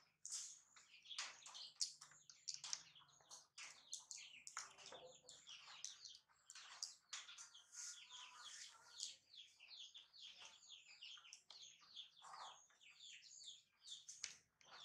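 Faint chirping of small birds: many short, high chirps in quick succession, going on throughout.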